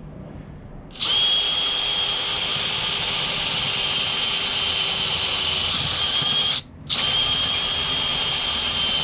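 Power drill boring a hole through the pipe of a sand scoop: a steady high whine that starts about a second in, stops briefly near the middle of the second half, then runs again.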